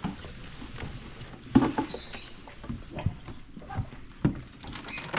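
Irregular light knocks and clicks from a small plastic mini washing machine being handled and checked, with a brief high hiss about two seconds in.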